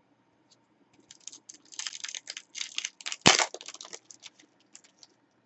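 Foil trading-card pack wrapper crinkling and being torn open, with one sharp tearing crack a little over three seconds in.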